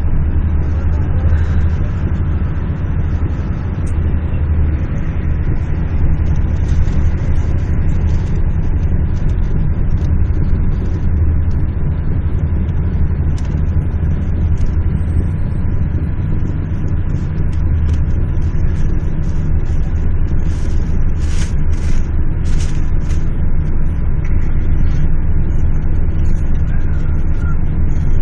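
Steady low rumble of engine and road noise, heard from inside a moving road vehicle. A few short, faint clicks come about three quarters of the way through.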